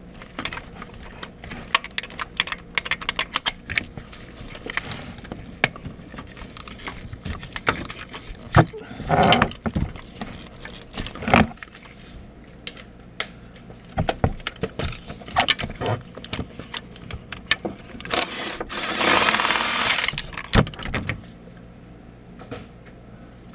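Hand ratchet clicking rapidly as the starter motor's mounting bolts are backed out of the transmission housing. Then comes metal-on-metal handling: a few louder knocks and about two seconds of scraping and rattling as the starter is worked loose.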